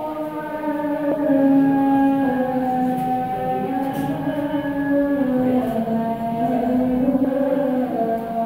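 A voice chanting long, drawn-out melodic phrases, each note held a second or more and gliding slowly into the next.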